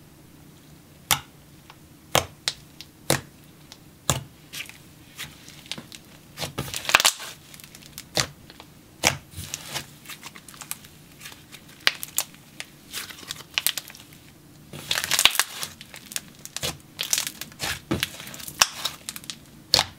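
Hands squeezing, pressing and stretching a thick icy-jelly hybrid slime, making sticky pops and crinkly crackling. At first the pops come about once a second, then come thicker spells of crackling about a third of the way in and again past the middle.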